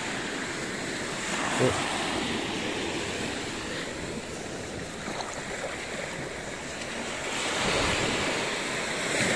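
Small sea waves washing onto a sandy beach, with wind buffeting the microphone; the rush swells louder near the end.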